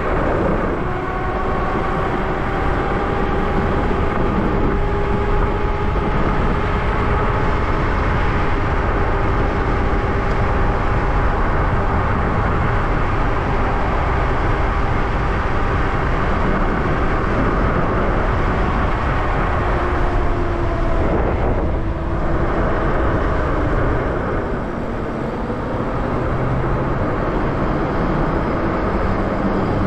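Wind rushing over the microphone and tyre roar from a Lyric Cycles Graffiti e-bike riding at road speed, with a steady electric motor whine that sags lower in pitch about twenty seconds in.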